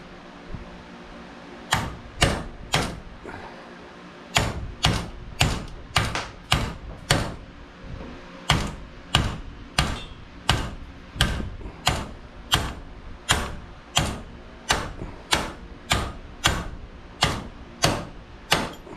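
Steady hammer blows on metal, about two a second after three opening strikes and a short pause, knocking out a stuck sleeve and bushing to free a garage door opener's motor.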